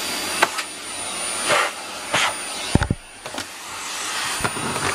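Vacuum cleaner running with a steady hiss that swells and fades as it is moved about. A few knocks come through it, with a heavy thump a little before three seconds in, and the noise briefly drops right after.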